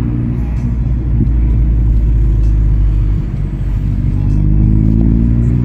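Car engine and road noise heard from inside the cabin while driving: a steady low rumble, the engine note rising a little about four seconds in.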